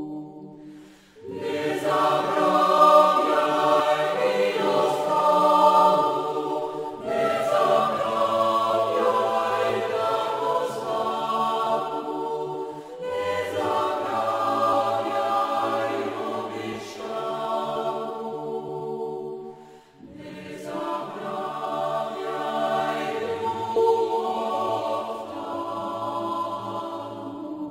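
Choir singing a slow, chant-like song in long phrases of about six seconds each, with brief pauses between them.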